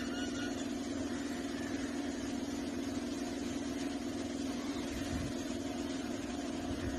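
A steady low mechanical hum that holds unchanged throughout.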